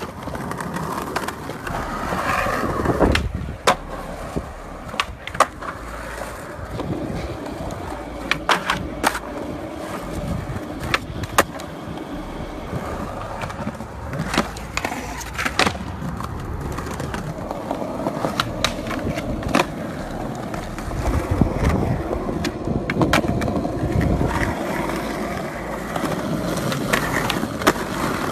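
Skateboard wheels rolling on concrete and paving, broken by many sharp pops and clacks of the board as tricks are done on flat ground.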